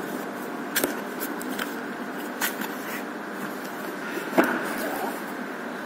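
A cardboard product box being handled and opened: a few light clicks and knocks of the box and lid, the loudest about four and a half seconds in, over a steady background hum.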